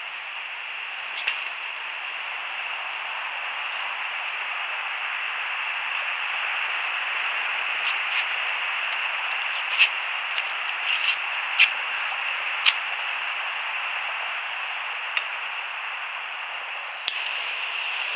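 Handheld gas blowtorch hissing steadily, with scattered sharp clicks from about a second in and a cluster of them in the middle.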